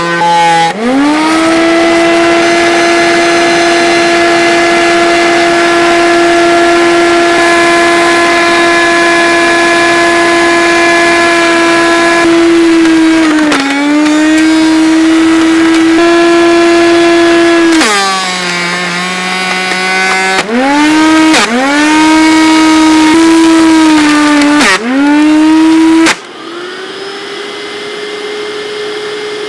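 Hoover SteamVac Ultra carpet cleaner's electric motor running with a loud high whine, speeding up about a second in, then dropping and rising in pitch several times. Near the end it cuts in and out quickly a few times, then stops abruptly, and a quieter whine slowly rises.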